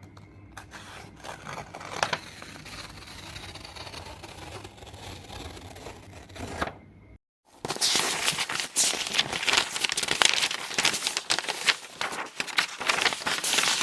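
Paper sound effects: for about seven seconds a soft scraping and rustling of paper over a faint low hum, then after a short silence a louder, dense crackle of paper being handled.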